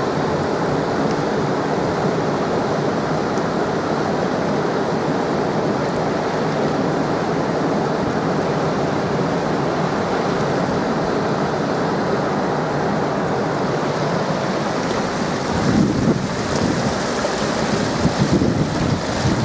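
Water rushing through the open gates of a hydro dam: a loud, steady rush of falling water. Wind buffets the microphone in a few gusts near the end.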